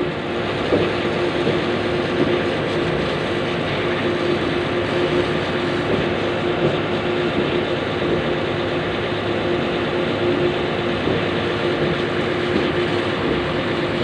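Water jet from a pressure-washer wand spraying a concrete mixer truck's wheels and underside, a steady hiss over a constant engine hum that does not change pitch.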